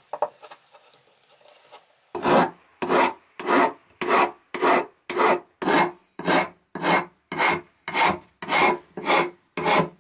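Flat metal file rasping across the end of a wooden hammer handle in steady back-and-forth strokes, a little under two strokes a second. The filing starts about two seconds in.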